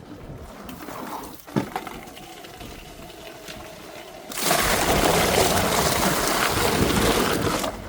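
Water from a drain jetter's hose spraying hard for about three seconds, starting and stopping abruptly, with a single sharp knock about a second and a half in.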